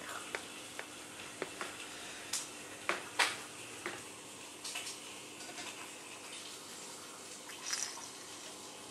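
Quiet room tone: a steady hiss and faint hum, with a handful of soft clicks and rustles scattered through, the loudest about three seconds in.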